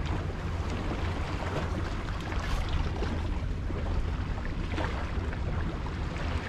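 Wind rumbling on the microphone over small waves lapping at a rocky seawall, with a few faint splashes.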